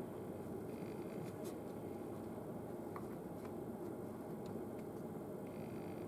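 Downy woodpecker's bill pecking at a suet cake in a wire cage feeder: a few faint, scattered ticks over a steady low background noise.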